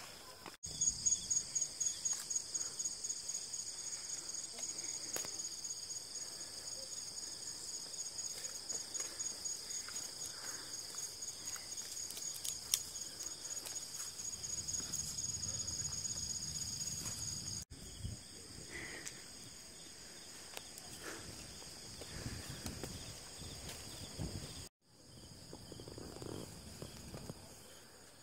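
Insects trilling in the hillside vegetation: a steady, high-pitched trill with a fast pulse. It is loudest through the first two-thirds and fainter after abrupt breaks about 18 and 25 seconds in.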